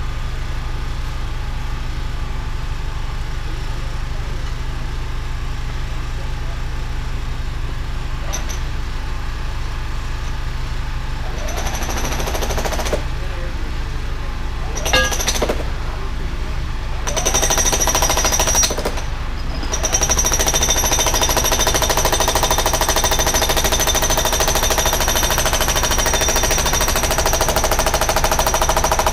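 Bobcat E32 mini excavator's diesel engine running steadily. From about twelve seconds in, and more strongly from about twenty, it picks up load and a high hydraulic whine joins it as the hydraulic drive head works. There is a sharp knock about fifteen seconds in.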